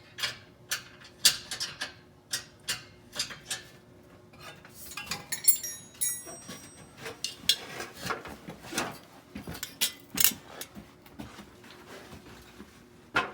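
Wrench clinking and clicking on the exhaust clamp hardware as the clamps are tightened down, in sharp, irregular metal knocks.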